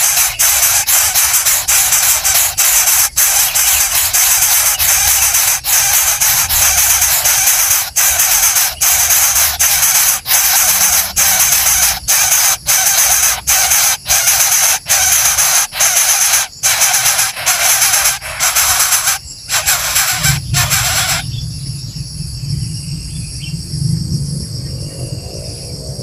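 Loud steady hissing noise broken by frequent brief dropouts. About twenty seconds in it gives way to a quieter, steady high trill of insects such as crickets over a low rumble.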